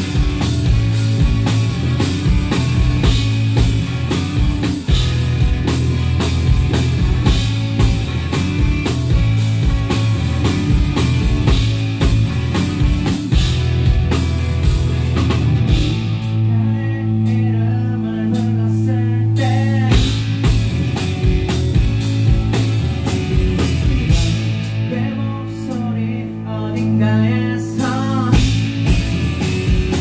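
Live rock band playing: electric guitars and a drum kit, with a man singing. Twice the drums drop out for a few seconds, leaving the guitars and the singing.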